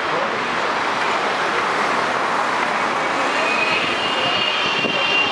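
Boeing 777's jet engines running as the airliner taxis on the runway: a steady rushing noise, with a high whine that comes in about three seconds in and grows stronger.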